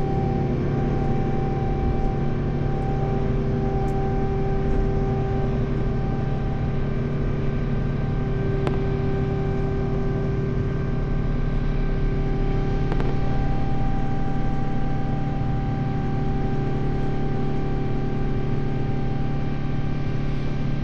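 Steady drone inside a jet airliner's cabin in flight: engine and airflow noise with several steady hum tones, and a few faint ticks.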